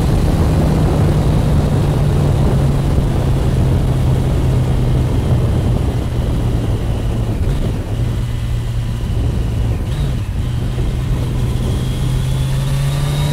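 Turbocharged Suzuki Hayabusa inline-four engine pulling steadily at cruising speed, heard from the rider's seat over wind rush. Near the end the revs climb and a high turbo whistle rises with them as the bike accelerates.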